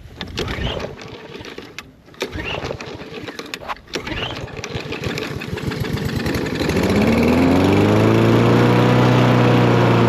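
Walk-behind lawn mower's small gasoline engine being pull-started after sitting all winter with untreated fuel, now fitted with a replacement spark plug. A few rough pulls sputter, then about five seconds in the engine catches, speeds up and runs steadily at high speed.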